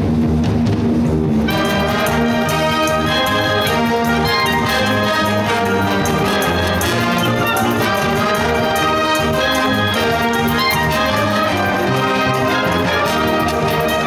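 School wind band playing a Eurobeat arrangement of Disney tunes, with brass, saxophones, flutes and clarinets over a drum kit and bass guitar at a steady dance beat. Only the low parts sound at first; about a second and a half in, the higher instruments come in.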